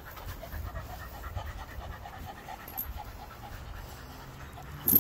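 American pit bull terrier panting fast and evenly, about five breaths a second. A single sharp knock comes near the end.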